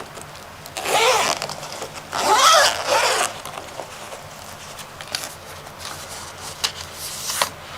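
Packaging and case contents being handled: two short bursts of rustling and sliding about a second apart, then a few light clicks and taps.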